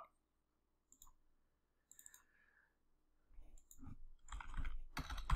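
Two faint computer mouse clicks, then from about three seconds in a quick run of typing on a computer keyboard.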